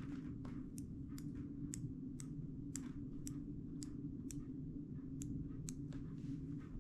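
Light mechanical clicks, about two a second, from the small carry toggles of a Monroe L-200 mechanical calculator being worked by hand, over a steady low hum.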